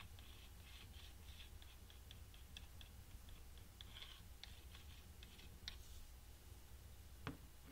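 Faint scratching and small clicks of a plastic adhesive bottle's nozzle being brushed across the bottom of a wooden block, used like a paintbrush to spread a thin coat of glue. A single soft knock comes near the end.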